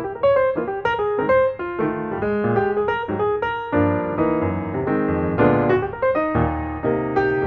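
Background music: a piano melody with steady, flowing notes.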